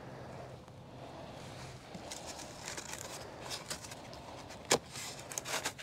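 Faint scattered ticks and handling noise from an oxalic acid vaporizer held against a wooden beehive, with one sharper click near the end, over a faint steady low hum.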